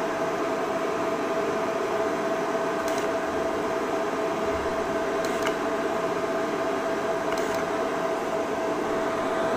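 Laser coding machine humming steadily, its cooling fans running with a steady tone over the hiss, while it marks code lines at each press of the foot pedal. Faint short ticks come about every two seconds.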